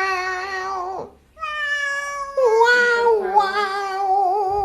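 Domestic cat meowing in long, drawn-out calls, three in a row with a short gap after the first, the last one wavering in pitch.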